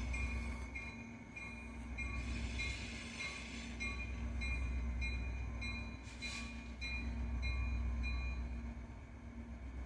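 Pair of diesel locomotives moving slowly, their engines rumbling, while the locomotive bell rings steadily about twice a second. A brief hiss comes about six seconds in.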